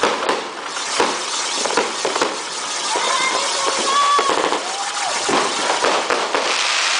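Ground fountain firework spraying sparks: a continuous hiss with scattered crackles and pops, swelling louder near the end.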